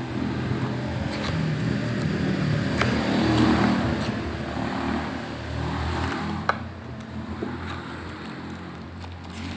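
Low rumble of a passing motor vehicle that swells to its loudest about three and a half seconds in and drops away around six seconds. Over it come light clicks and rustles of a cardboard box being opened and handled.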